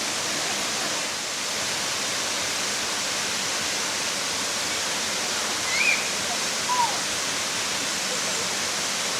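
Kursunlu waterfall's cascading water making a steady rushing hiss. Two brief high-pitched sounds stand out, about six and seven seconds in.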